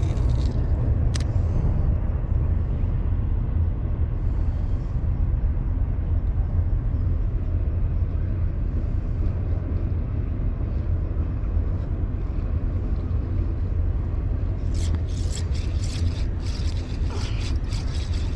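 Steady low outdoor rumble, with a single sharp click about a second in and a run of sharp clicks and ticks starting near the end.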